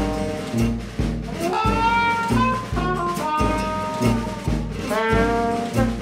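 Jazzy background music led by brass horns over a steady beat of about two thumps a second.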